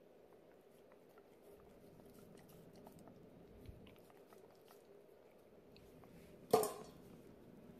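Husky chewing and biting on raw chicken, with faint scattered crunching clicks and one much louder sharp crack about six and a half seconds in.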